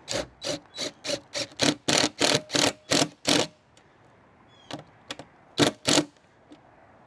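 Cordless drill driving self-tapping galvanized roofing screws into the RV roof truss, in a rapid string of short trigger bursts, about three a second, for three and a half seconds, then two more bursts near the end.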